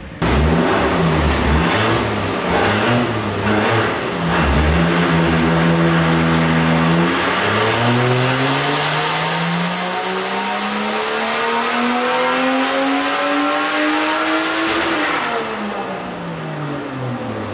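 Turbocharged, straight-piped Toyota 1G-FE inline-six in a Lexus IS200 running on a chassis dyno: it turns over at lower revs for several seconds, then pulls at full throttle in a ramp run, climbing steadily in pitch for about seven seconds with a high whine rising with it, before it lets off and the revs fall away near the end.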